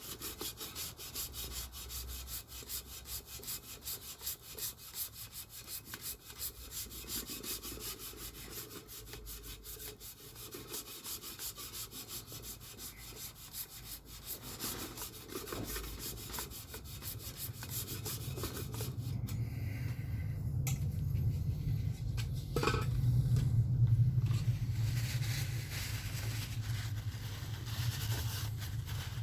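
Sandpaper rubbed by hand back and forth over a metal engine part in rapid, even strokes, kept flat to take out scratches. About two-thirds of the way in the strokes stop and a low rumble takes over, loudest near the end.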